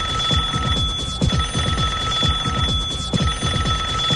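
Payphone ringing in repeated bursts, with short breaks about every second and a half, over music with a fast pulsing bass beat.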